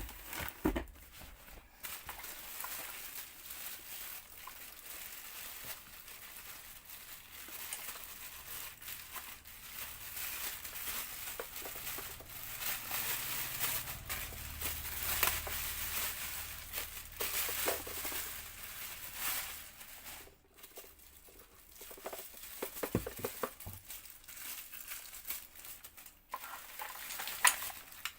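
Plastic packaging crinkling and rustling as it is handled, with scattered small clicks and knocks of plastic parts.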